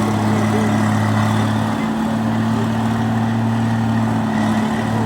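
Rice-processing machine running at a steady speed, its engine giving a constant hum.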